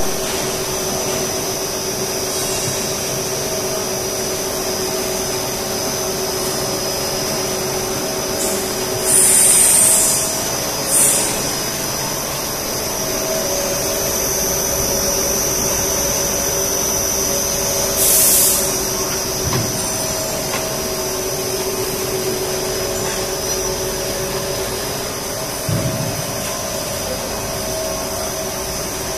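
A plastic film blowing machine running: a steady mechanical drone from its extruder motors and cooling blowers, with constant tones and a high whine. Short, loud hisses break in a few times, the first carrying a brief whistle.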